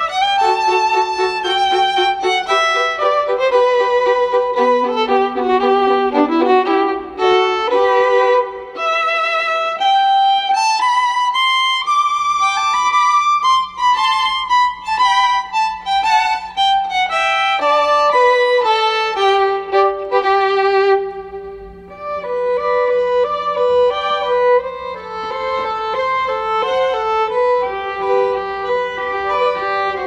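Background music: a violin playing a slow melody of held notes with vibrato.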